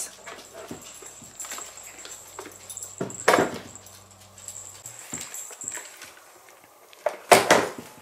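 A small dog barking briefly, once about three seconds in and again two or three times near the end, over light clatter of a robot vacuum being turned over on a wooden table.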